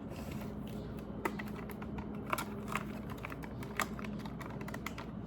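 Computer keyboard keys clicking and tapping irregularly as the keyboard is handled, with a few sharp clicks scattered through.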